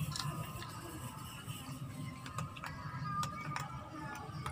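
A dog eating dry kibble from a plastic bowl: a handful of sharp crunches and clicks, the clearest about two and a half to three and a half seconds in, over background music.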